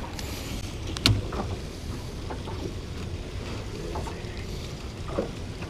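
A muskie being handled on a measuring bump board on a boat deck: one sharp knock about a second in and a smaller one near the end, against steady wind noise on the microphone.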